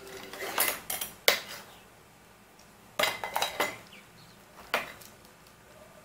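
Ring-necked parakeets rummaging in a plastic basket of toys: clattering and clinking of the toys, among them a metal screwdriver, against the plastic. It comes in short bursts: a few sharp clicks about a second in, a busier clatter around three seconds in, and one more knock near five seconds.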